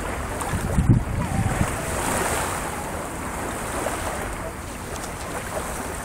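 Small waves breaking and washing up the beach, with wind buffeting the microphone and a louder buffet about a second in.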